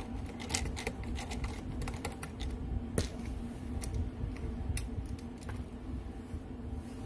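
Irregular light clicks and taps of small metal parts and hand tools being handled, as the screw is backed out of the newly set rivet nut, over a steady low hum.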